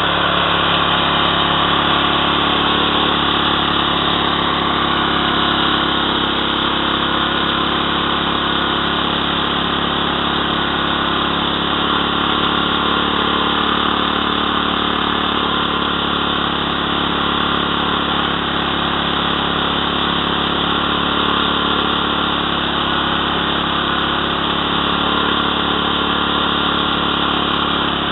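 Engine-driven mini power rice thresher running steadily at an even speed, with no change in pitch or level.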